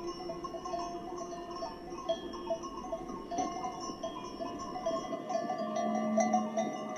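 Many small metal bells clinking at an uneven pace, like cowbells or goat bells. A low steady drone tone joins near the end.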